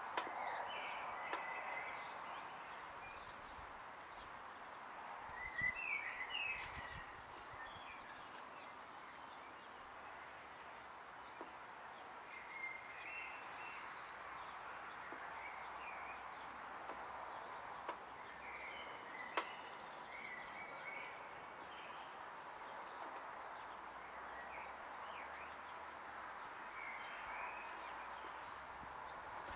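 Small birds chirping and calling over and over over a steady hiss; the chirps come thickest around six seconds in.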